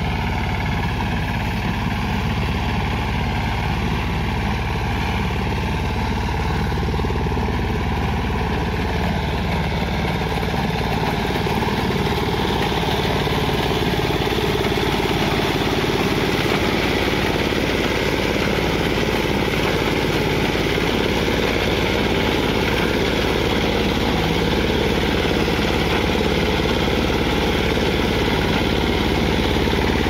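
A BCS three-wheel reaper binder's Greaves 10 HP engine running steadily under load as the machine cuts and binds standing wheat. The sound gets a little louder and brighter about twelve seconds in.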